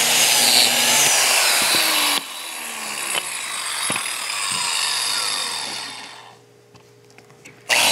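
Porter-Cable biscuit joiner motor running at full speed, then switched off about two seconds in, its spinning blade winding down with a falling whine over the next few seconds. Just before the end the motor starts up again for the next slot.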